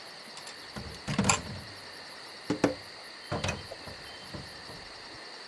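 Crickets chirping steadily, with three short clunks and scrapes of household things being packed away, about one, two and a half, and three and a half seconds in.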